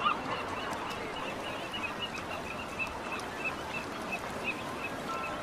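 Bird chirping rapidly with short high chirps, about five a second, thinning out after a few seconds, over a steady background hubbub. A brief single call comes near the end.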